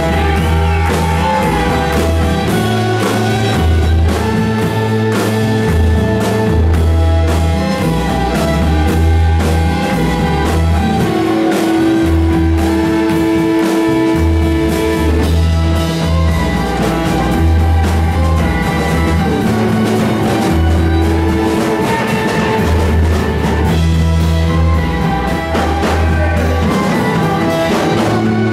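Rock band playing live: guitars and drum kit over a bass line that moves between low notes.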